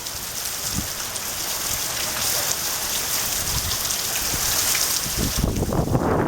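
Heavy typhoon rain pouring steadily. Gusts of wind come in as low rumbles about five seconds in.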